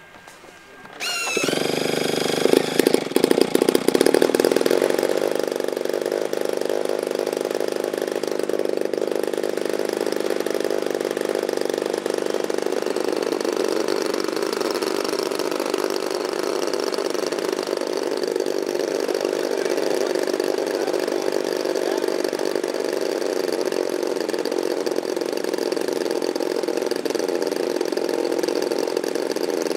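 Internal-combustion engines of a large radio-controlled OV-10 Bronco scale model catching about a second in, running unevenly with sharp surges for a few seconds, then settling into steady running.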